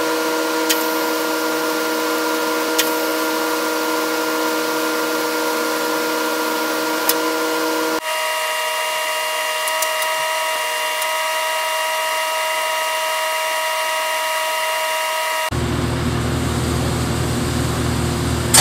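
TIG welding arc building up a steering shaft with weld: a steady hiss with a buzzing whine. Its pitch shifts abruptly about eight seconds in and again a few seconds before the end, the last stretch a deeper buzz.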